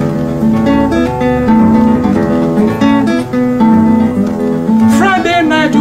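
Acoustic guitar playing a highlife tune in the Dagomba style, with picked melody notes over a repeating bass line. A singing voice comes in near the end.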